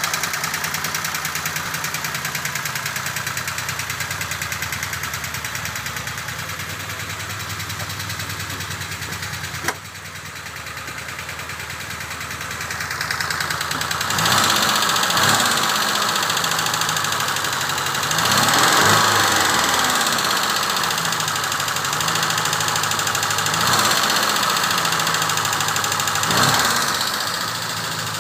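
Peugeot 304 four-cylinder engine idling steadily, with a single sharp click about ten seconds in. In the second half it is revved four times, each time rising in pitch and falling back to idle.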